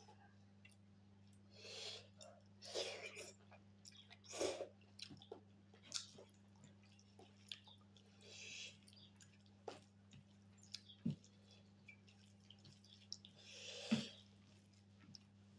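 Close-miked chewing of pork and rice, with wet mouth sounds and sharp clicks coming in short, irregular bursts. A steady low hum runs underneath.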